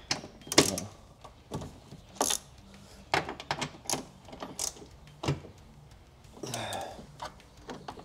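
Ratchet wrench clicking and knocking at irregular intervals as loose 10 mm bolts are backed out inside a car door frame.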